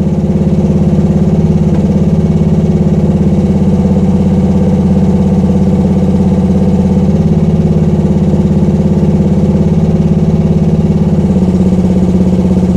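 Gasoline engine of a Rippa R10 mini excavator running steadily with the hydraulics engaged while the bucket curl is worked; the engine note shifts slightly higher about 11 seconds in.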